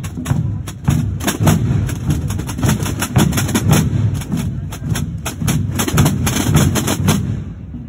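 A section of Holy Week procession drums (snare-type tambores) played together: many rapid, sharp stick strokes in a marching rhythm over a steady low rumble.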